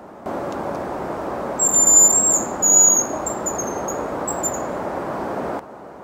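Hazel grouse whistling its song: a series of very thin, very high whistles. The first note is long and the loudest, followed by several shorter notes that drop slightly. Steady hiss starts and cuts off abruptly around the song.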